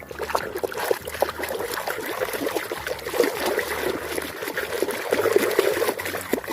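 Water trickling and splashing as a toy cement mixer truck is washed, with many small spatters throughout.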